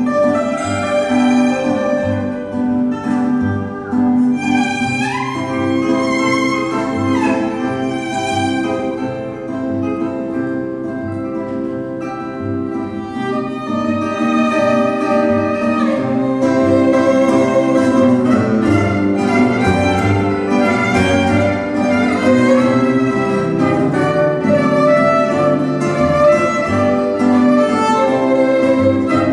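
Violin playing a fado melody over an accompaniment of Portuguese guitar and acoustic guitar. The violin holds long notes and slides up into some of them. The playing grows fuller and louder about halfway through.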